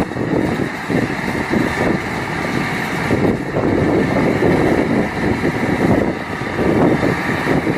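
Mahindra 4710 tractor engine running steadily while it drives a Massey Ferguson Hesston 1745 round baler through a trial run with hay.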